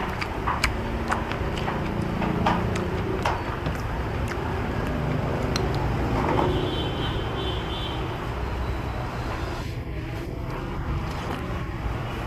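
Steady road-traffic rumble from passing vehicles, with scattered sharp clinks of a metal spoon and chopsticks against a soup bowl.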